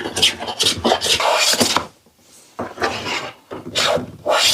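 Hand plane shaving a wooden board diagonally or across the grain, in a run of quick short strokes, then after a short pause a few longer strokes.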